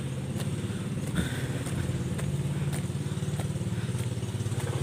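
A small engine running steadily, a low even drone, with faint ticks about twice a second.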